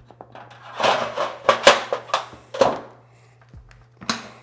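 Sheet-metal duct panel and a steel folding bar clattering on a wooden workbench as the bar is fitted over the panel's edge for bending a lip: a quick run of about six sharp clanks and rattles about a second in, then another clank near the end.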